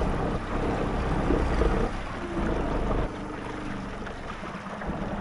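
Small boat's outboard motor running underway, with the hull moving through the water. The sound is steady and drops in level about three seconds in.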